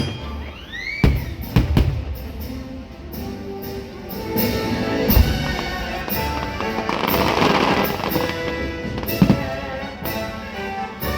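Fireworks over a playing music soundtrack: a couple of rising whistles at the start, then several sharp bangs of shells bursting and a burst of crackling about two-thirds of the way through.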